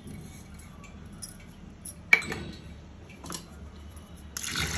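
Metal spoon clinking against a steel pressure-cooker pot of toor dal: one sharp, ringing clink about two seconds in and a few lighter taps. Near the end water starts pouring into the pot with a steady splashing hiss.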